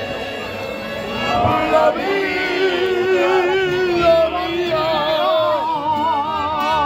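Live mariachi band playing: violins holding long notes with wide vibrato over guitars and low bass notes, growing louder about two seconds in.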